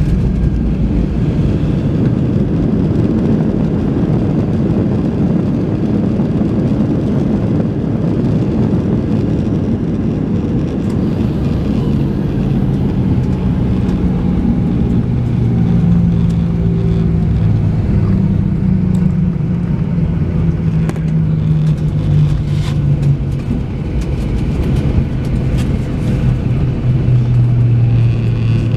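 Cabin noise of a Boeing 737-800 with CFM56 engines arriving on the runway: a heavy, steady rumble of engines and wheels. From about halfway through, a low hum slowly falls in pitch as the engines wind down.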